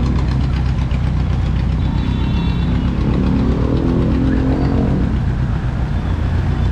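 Vehicle engine running close by with a steady low rumble; a higher engine note swells and fades in the middle, as of a vehicle passing.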